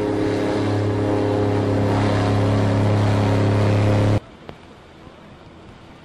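Airboat's engine and propeller running at speed, a loud steady drone that grows louder as the boat comes past, cut off suddenly about four seconds in. After that, a much quieter background with a few faint clicks.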